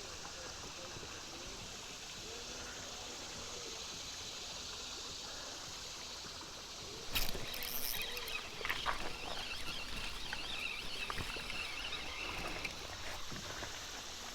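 Flowing river water. About halfway through, louder splashing with scattered knocks and clicks starts up and carries on.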